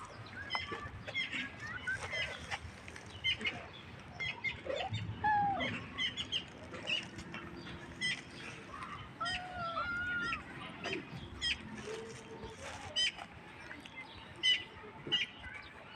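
Cats meowing a few times in short rising-and-falling calls, among frequent short high chirps of small birds.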